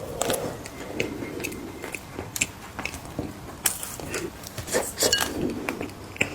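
Mini cookies being bitten and chewed close to the microphone: irregular sharp, crisp crunches, several a second, with wet mouth sounds between them.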